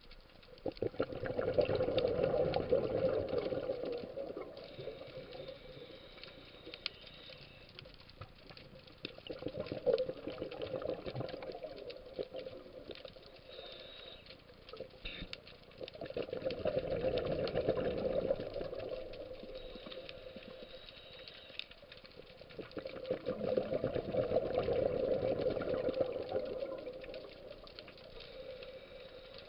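A scuba diver's exhaled bubbles gurgling out of the regulator in four long bursts, about seven seconds apart, with quieter stretches between breaths.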